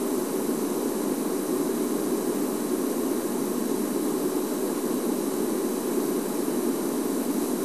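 Safari game-drive vehicle's engine idling: a steady drone with hiss that does not change.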